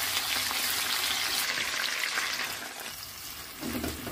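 Rabbit pieces and chopped onion frying in oil in a nonstick pan: a steady sizzle that eases a little near the end, with a short thud just before the end.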